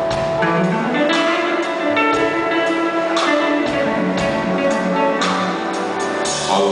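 Live band playing a slow soul ballad instrumental: a hollow-body electric guitar plays the melody over keyboard chords, with crisp percussion hits about twice a second.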